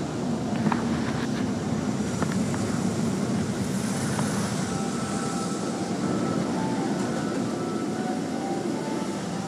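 Automatic car-wash tunnel machinery heard from inside the car's cabin: a steady, muffled rushing rumble, with a few light knocks in the first few seconds.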